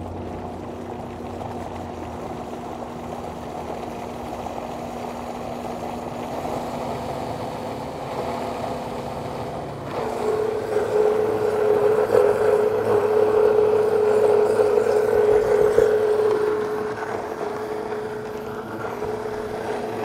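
Vitamix blender motor running, blending a thick paste of oil, garlic, tomato paste and spices. About halfway through it jumps to a louder, higher whine, which eases off a little near the end.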